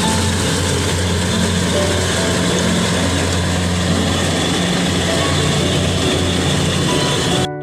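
Engine of a rice harvesting machine running steadily under load, a constant low hum with a dense noisy roar above it. The sound cuts off abruptly near the end.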